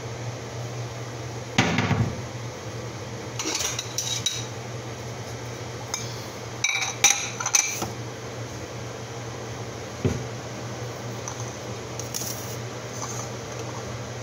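Ceramic dishes clinking and knocking on a stone countertop as a mug and saucer are set out: a heavy knock about a second and a half in, bursts of clinks around four and seven seconds, and a lighter knock near ten seconds, over a steady low hum.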